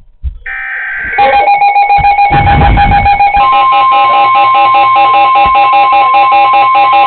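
Emergency alert signal on a weather radio broadcast: a brief two-tone data-burst screech, then a loud steady alert tone with a fast pulsing, music-like pattern over it, announcing an incoming tornado warning.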